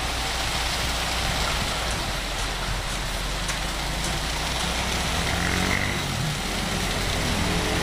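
Concrete mixer truck's diesel engine running steadily as the truck discharges, with the rushing hiss of wet concrete sliding down the discharge chute.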